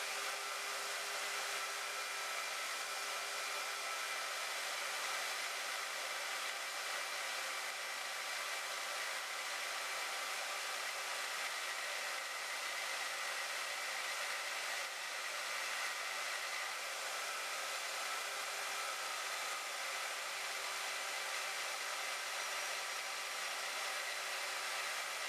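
Harbor Freight band saw running steadily through a slow cut, a continuous even hiss with a faint steady whine.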